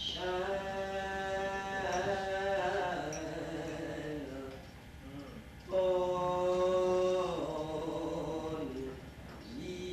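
A woman's solo voice singing slow, long-held notes, each phrase stepping down in pitch at its end. A second, louder phrase begins about six seconds in.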